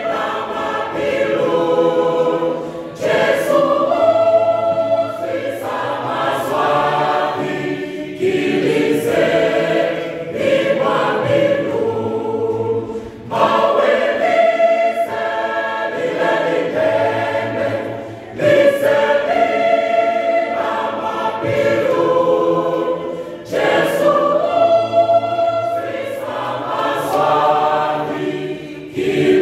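Mixed choir of men and women singing a gospel song together, in phrases of a few seconds with short breaks for breath between them.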